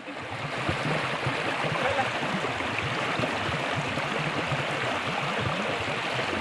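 Flowing river water rushing steadily, louder from the very start.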